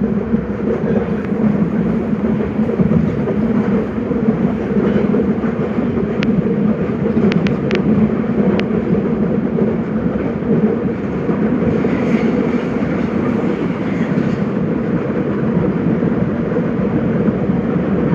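Nagoya Municipal Subway Higashiyama Line 5050 series train running between stations: a steady, loud rumble of wheels and motors. A few brief high squeaks come about six to nine seconds in.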